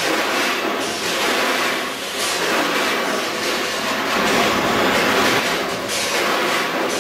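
Ross tray sealer running: a steady mechanical clatter and hiss from the tray-sealing machine, swelling and easing every couple of seconds.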